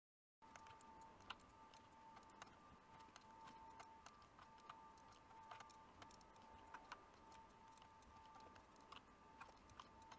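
Near silence: a faint steady high whine with faint, irregular clicks about once or twice a second.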